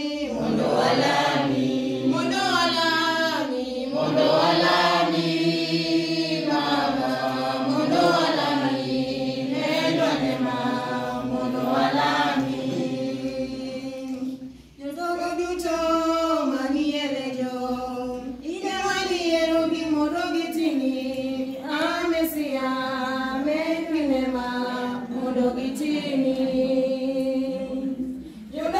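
Church choir singing a hymn together in unaccompanied voices, in long sung phrases with a short break about halfway through.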